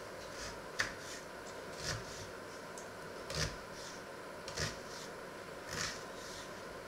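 Small knife cutting an onion on a wooden cutting board: five crisp cuts about a second apart, each ending in a light knock of the blade on the board. A faint steady hum underneath.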